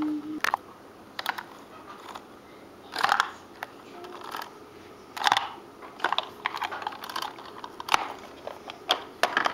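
Plastic toy figures and playset pieces being handled and moved: scattered clicks and taps, with a few short rattling, scraping bursts.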